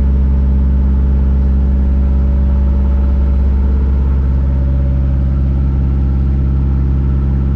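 A motor cruiser's inboard engine running at a steady speed, heard from inside the wheelhouse while underway: an even, deep drone with no change in pitch.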